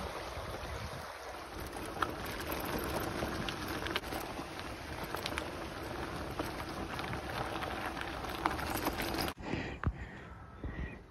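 Steady rushing of wind and tyre noise from a mountain bike being ridden, with a few sharp clicks. About nine seconds in it cuts off suddenly, leaving quiet air with a few bird chirps.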